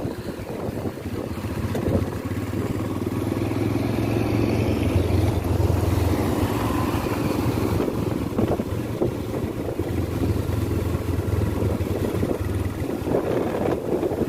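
Motorcycle engine running steadily while riding, with wind rushing over the microphone; the engine note swells slightly a few seconds in.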